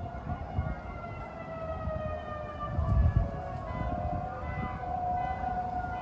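Federal Signal 2001-130 rotating outdoor warning siren sounding its attack signal, a wailing tone that slowly falls over the first few seconds and then rises again. A low rumble underneath swells about halfway through.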